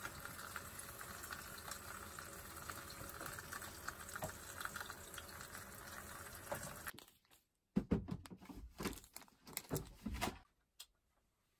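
Cabbage frying in a pan over a gas burner: a steady sizzle with faint crackles. It cuts off about seven seconds in, and a few soft knocks follow.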